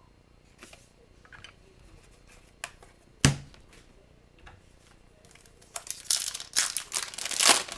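Cards being handled with a few light clicks and one sharp tap, then a foil trading-card pack crinkling and tearing open near the end.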